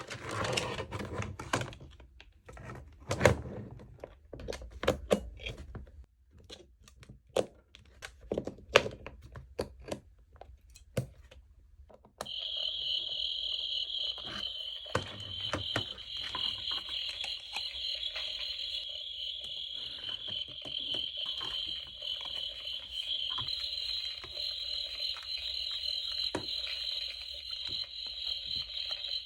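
Irregular sharp knocks and clicks for about the first twelve seconds. Then, suddenly, a steady chorus of crickets chirring sets in, with scattered crackling clicks over it.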